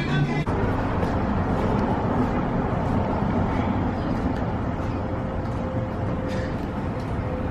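Music cuts off about half a second in, giving way to steady outdoor background noise with a low rumble, like traffic.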